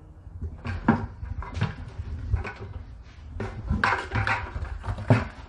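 Old fuel pump assembly being pulled out of a car's fuel tank and set into a plastic bucket: a run of irregular knocks, clunks and rattles of plastic and metal handling.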